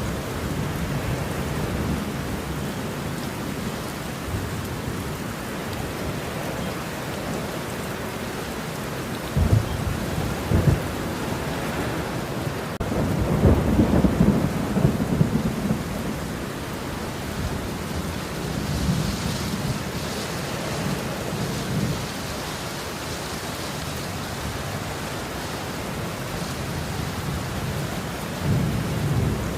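Steady rain with thunder rumbling in the distance, swelling strongest about halfway through, with two sharper cracks just before.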